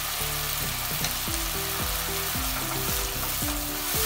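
Onion and spice masala paste sizzling steadily in hot oil on high flame as it is fried down, with a wooden spatula stirring through it. Soft background music with low held notes plays underneath.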